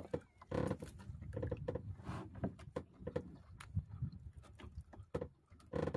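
A man chewing grilled squid with his mouth close to the microphone: irregular wet smacks and clicks of lips and tongue over a low rumble.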